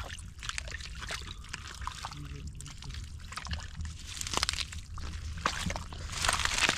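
Hands groping through wet mud and shallow muddy water, squelching and splashing irregularly, with louder splashes about four seconds in and again near the end.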